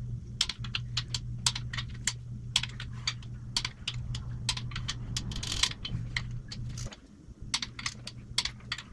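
Craftsman click-type torque wrench ratcheting in quick, irregular clicks as main bearing cap bolts are drawn up to 55 ft-lb, over a steady low hum.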